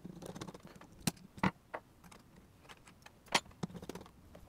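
Screwdriver turning a screw into a metal camera cage, with light, irregular metallic clicks and ticks as the tool and metal parts knock together.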